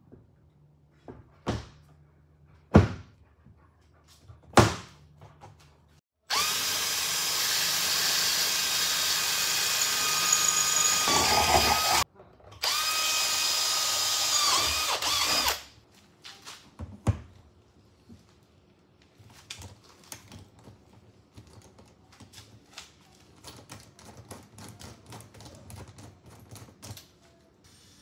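A few sharp knocks, then a cordless drill boring into the metal frame of a cab-to-habitat pass-through: one run of about six seconds, a short stop, and a second run of about three seconds, the pitch dipping as the bit bites. The holes are for M5 rivet nuts. Faint clicks and ticks follow.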